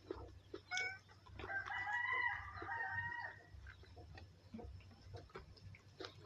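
A rooster crows once, a single call of about two seconds starting a second and a half in, preceded by a short note, with scattered small clicks around it.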